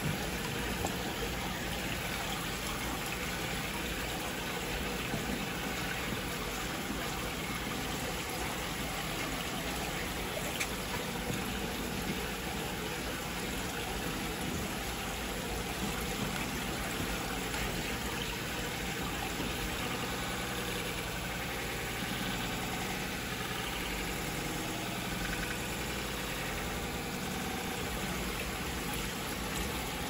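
Aquarium filter pump running, with the steady rush and trickle of circulating water.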